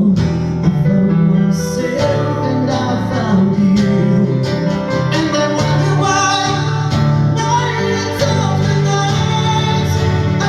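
Live concert music: a guitar strummed in a steady rhythm, with a voice singing.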